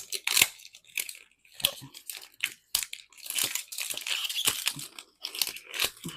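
Plastic wrapping on a Mini Brands capsule ball crinkling and tearing as it is pulled off by hand, in irregular bursts with sharp crackles, busiest a little past the middle.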